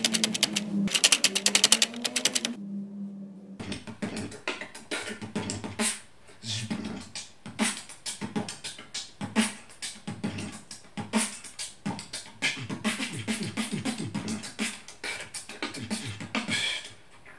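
Rapid typewriter clacking for about two and a half seconds, then, after a short pause, a man beatboxing into a microphone: rhythmic percussion made with the mouth and voice.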